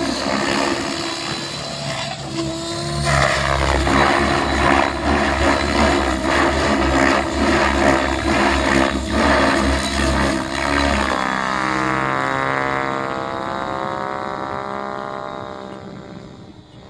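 Align T-Rex 700E electric RC helicopter in flight: the rotor and motor sound rises and falls in pitch as it manoeuvres. About eleven seconds in the sound turns into a wavering sweep as the helicopter climbs high and away, then fades near the end.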